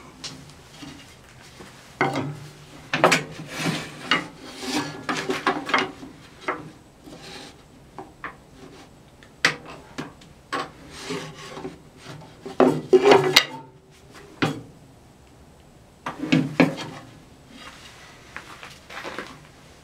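Small walnut stick scraping and sliding across a cast-iron table saw top and along the fence, with small knocks as it is set in place. The saw is not running. The scrapes come in irregular bursts, three of them louder than the rest.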